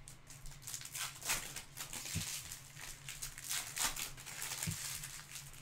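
Glossy Topps Chrome trading cards being flipped through by hand, each card sliding off the stack with a short rustle, about two to three a second. A steady low hum runs underneath.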